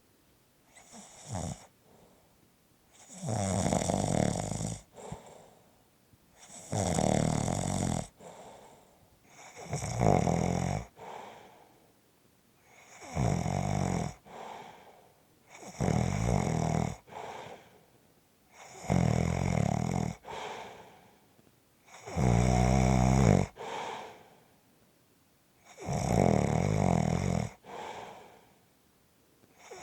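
Steady rhythmic snoring: about eight loud, rattling snores, one every three seconds or so. Each is followed by a softer breath.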